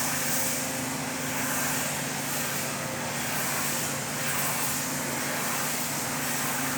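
Steady machine noise: an even hiss with a low hum beneath it, unchanging throughout.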